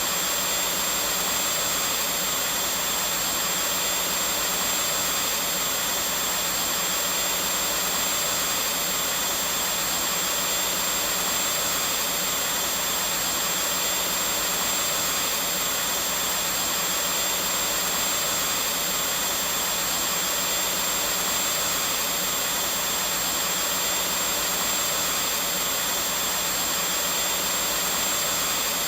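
Vacuum cleaner running steadily, an unchanging whooshing noise with a thin high whine over it.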